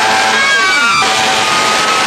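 Several fire trucks sounding sirens and air horns together in a loud din of overlapping tones. About half a second in, one siren's pitch falls away.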